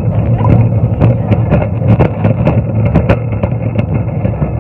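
Metal shopping trolley being pushed along, its casters rumbling on the floor and the wire basket rattling with many small clicks, picked up through the phone clamped to the trolley.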